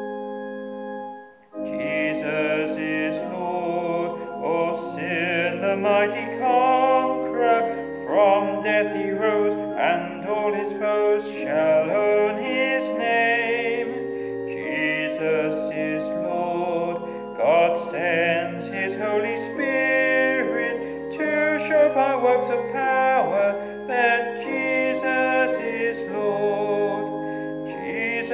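A hymn sung with keyboard accompaniment. The music pauses briefly about a second and a half in, then starts again.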